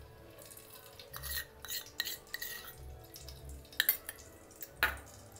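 Metal spoon clinking and scraping against an aluminium cooking pot: a few light taps and scrapes, with a sharper knock near the end.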